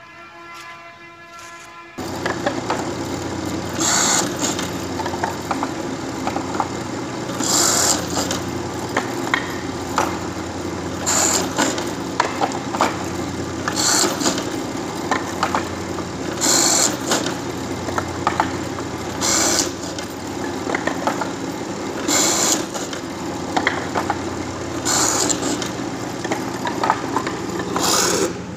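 A woodworking machine motor comes on abruptly about two seconds in and runs with a steady hum. A louder hissing cut recurs about every three seconds.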